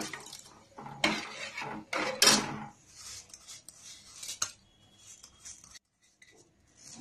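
Metal spoon scraping soaked foxtail millet out of a bowl into a pressure cooker of coconut milk and water: three strong scrapes in the first three seconds, then lighter scrapes and a sharp tap about four and a half seconds in, fading near the end.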